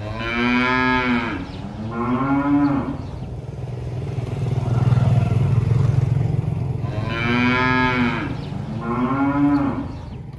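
Cow mooing: two pairs of long, drawn-out moos, one pair at the start and another about seven seconds in, over a steady low hum.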